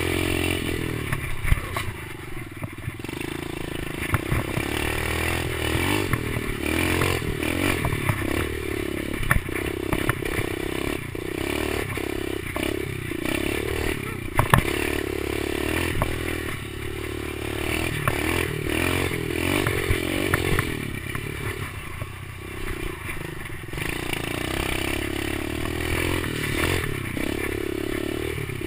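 Kawasaki KLX110 pit bike's small air-cooled four-stroke single-cylinder engine running under riding load, its revs rising and falling as the throttle comes on and off. Frequent knocks and rattles sound throughout.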